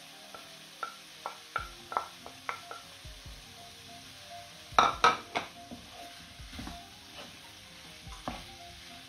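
Wooden spatula tapping and scraping chicken pieces off a ceramic plate into a non-stick frying pan: a run of light clinking taps, two loud knocks about five seconds in, then the chicken and vegetables being stirred in the pan with a faint sizzle.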